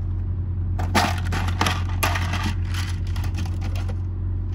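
Plastic crinkling and rattling in about five short bursts as a pack of heat-seal butt connectors is handled, over a steady low hum.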